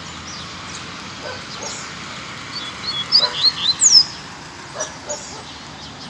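Double-collared seedeater (coleiro) singing: a quick run of short high chirps about halfway through, ending in one loud downslurred note, over steady background noise.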